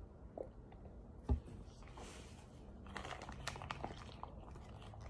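A single thump a little over a second in, then a second or so of faint crackling and crunching.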